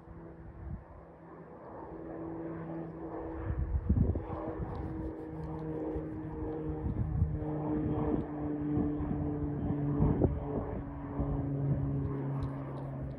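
Piper PA-46-350P Malibu Mirage's single piston engine and propeller droning steadily as the plane climbs out overhead after takeoff. It grows louder over the first few seconds and its pitch slowly sinks.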